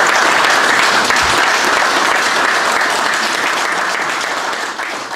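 Audience applauding: dense, steady clapping from a room full of people, tapering off near the end.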